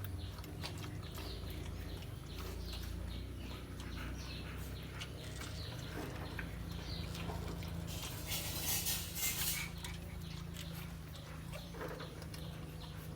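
Month-old American Akita puppies moving about and making small squeaks and whimpers over a steady low hum. A louder burst of hissing rustle comes about eight seconds in and lasts a second and a half.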